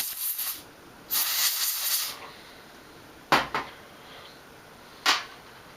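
Canned compressed air blasted onto small motorcycle start-switch parts to blow them clean: two longer hissing bursts in the first two seconds, then three short puffs.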